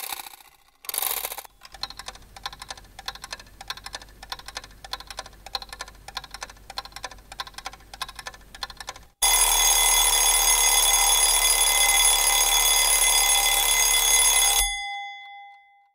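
A mechanical alarm clock: quick, even ticking, then its bell rings loudly and continuously for about five seconds before cutting off suddenly, leaving one fading tone.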